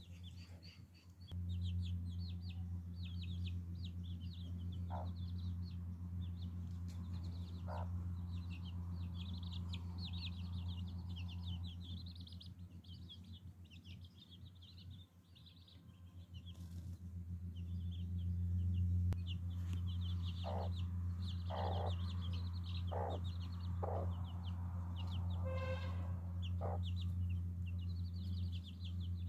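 A brood of chicks peeping rapidly and almost without pause, with a mother hen giving occasional short low clucks, more of them in the second half. A steady low hum runs underneath, fading for a few seconds midway.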